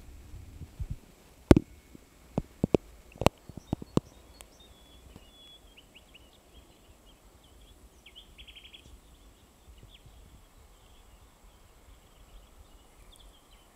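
A few sharp clicks and knocks in the first four seconds as the camera comes out of the water, then faint bird chirps over quiet outdoor background, with a quick rapid trill a little past the middle.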